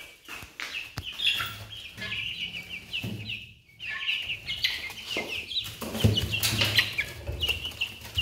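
A brood of young chickens chirping and clucking: many short, high peeps one after another, with some rustling and bumps around the middle and later on.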